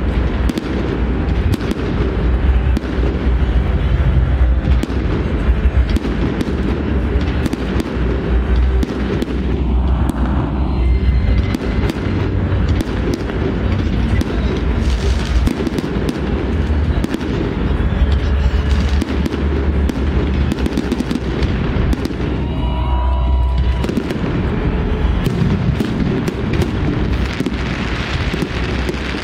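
Fireworks going off in a dense, continuous string of bangs and crackles, with deep booms throughout.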